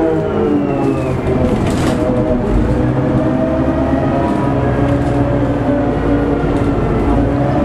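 Worn planet gears in the hub reductions of a Gardner-engined MCW Metrobus, giving a loud whine in several pitches over the engine's rumble. The whine sinks over the first couple of seconds, then climbs again as the bus picks up speed about two and a half seconds in.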